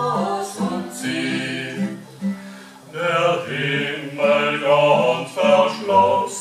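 Small mixed group of two men and two women singing a German Christmas song together in harmony. The singing drops away a little over two seconds in and picks up again with the next phrase at about three seconds.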